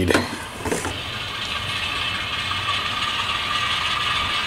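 HO scale model train running on the layout track: a steady mechanical whir of the locomotive's motor and gear drive, building up in the first second and then holding even.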